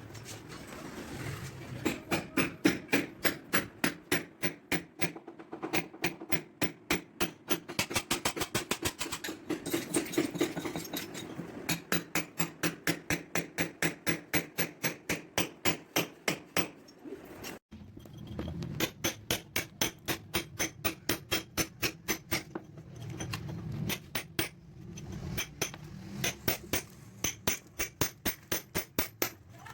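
A hammer striking repeatedly and steadily, about three blows a second, during demolition work to replace old drainage pipes. The blows break off briefly a little past halfway, then resume at the same pace.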